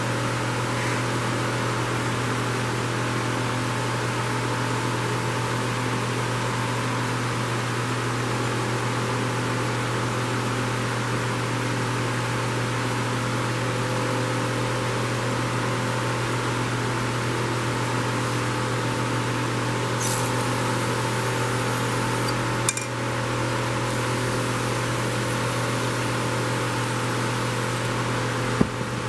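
Steady hum and rushing air of an electric shop fan. A short scrape comes about two-thirds of the way through, and two sharp knocks follow, the last near the end.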